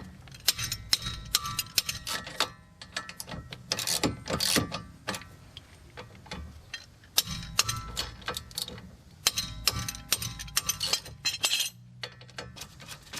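Socket ratchet clicking in quick runs with short pauses as the rear brake caliper bolts are worked loose.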